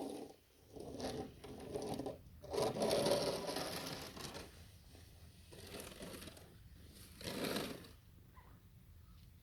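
Snow being cleared by hand: several scraping, pushing strokes of a shovel through snow, the longest about two seconds, with a shorter stroke near the end.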